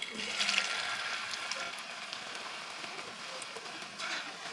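Batter-coated cauliflower florets sizzling and crackling in hot vegetable oil, flaring up as a floret drops in at the start and again about four seconds in.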